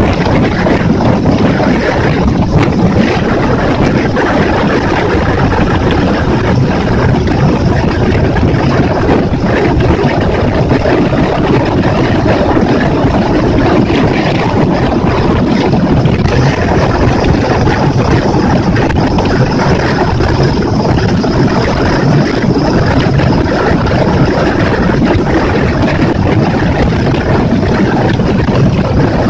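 Yamaha F60F four-stroke 60 hp outboard motor running steadily with the boat under way, mixed with wind on the microphone and water rushing past the hull.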